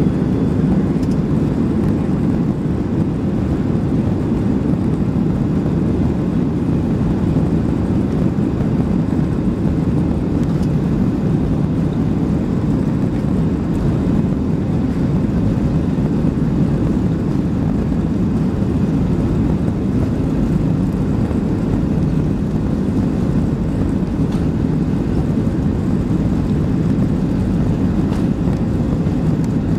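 Cabin noise of a Boeing 737-700 on its takeoff roll, heard from a seat over the wing: a steady, loud, deep rumble from the CFM56-7B engines and the aircraft rolling down the runway.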